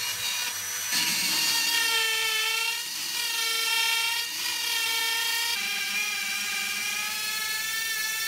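Dremel 4200 rotary tool running at high speed while its bit cuts a straight line through an MDF sheet. The high whine grows louder about a second in and dips in pitch a few times as the bit bites into the board.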